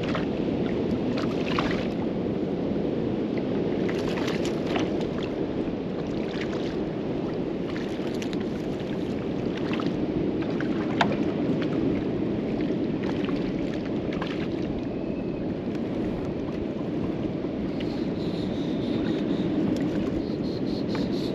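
Water lapping and splashing against a kayak hull, over a steady rushing wash, with scattered small knocks and one sharper click near the middle. Insects chirp in fast pulses near the end.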